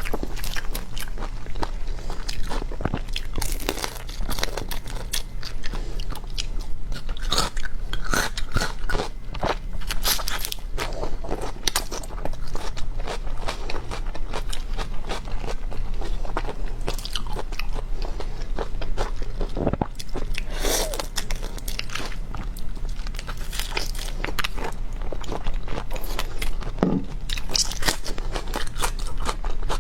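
Close-miked eating: repeated crunchy bites and chewing, with many sharp crackles and clicks.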